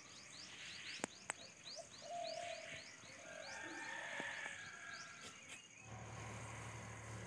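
Faint outdoor background of small birds chirping: quick, high, falling chirps, several a second, with two sharp clicks about a second in. Near the end the birds give way to a low steady hum.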